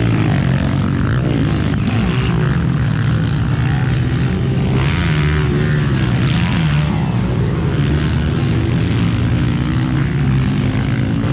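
Motocross dirt bike engines revving hard, pitch rising and falling as the riders accelerate and let off over the jumps.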